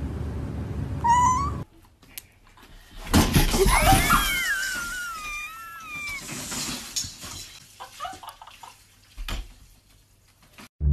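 A cat's short rising meow about a second in. Then a loud clatter, followed by a long wavering high-pitched wail of about three seconds, and a short thud near the end.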